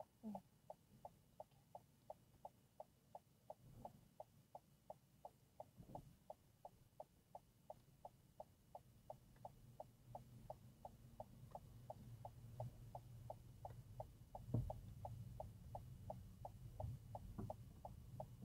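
A car's turn-signal indicator clicking faintly and steadily inside the cabin, about three clicks a second. A low engine and road hum builds from about halfway through as the car moves off, with a single thump about two-thirds in.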